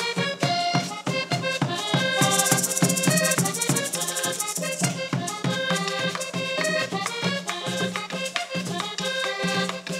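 Live Panamanian folk cumbia on diatonic button accordion, played in quick repeated notes over a steady hand-drum beat with a rattle. The rattle shakes fast and loudest from about two to five seconds in.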